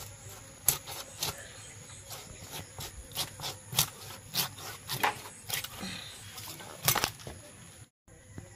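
Large lau foli river fish being cut on a boti, a fixed upright curved blade: a run of sharp, irregular clicks and knocks as the blade cuts through the fish, loudest about a second in and again near the end.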